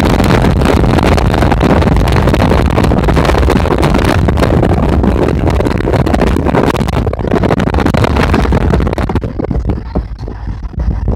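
Wind rushing and buffeting against the microphone of a phone filming from a moving car, mixed with road and tyre noise. It eases somewhat near the end.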